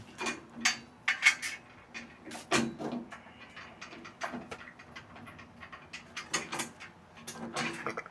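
Irregular clinks, knocks and rattles of metal parts and tools being handled while putting together a home exercise machine.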